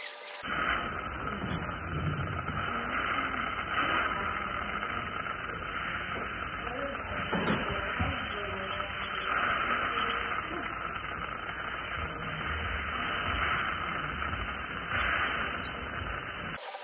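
Dental suction and air-water syringe hissing steadily as acid etchant is rinsed off the teeth and the water is sucked away. The hiss starts abruptly about half a second in and cuts off just before the end.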